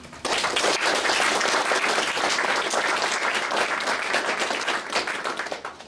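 Audience applauding, a dense patter of many hands clapping that starts a moment in and dies away near the end.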